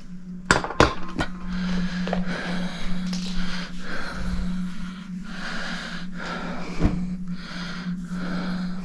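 A man breathing hard in regular puffs, winded from lifting a heavy clock case, after a few light knocks at the start, over a steady low hum.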